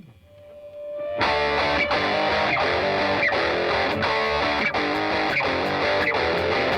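Background rock music: an electric guitar with distortion comes in about a second in, playing over a steady beat.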